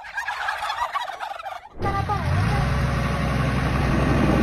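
Turkeys gobbling, several wavering calls overlapping for about the first two seconds. Then the sound cuts suddenly to a louder, steady low rumble with a couple of short falling tones above it.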